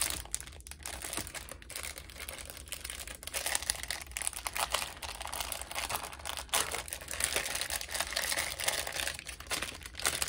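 Sheet-mask sachets and their packaging crinkling and rustling as they are handled and pulled out, a continuous rustle with many small crackles.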